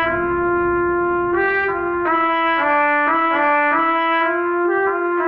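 A trumpet-like brass tone playing a slow melody: one long held note, then a run of shorter notes stepping up and down about every half second.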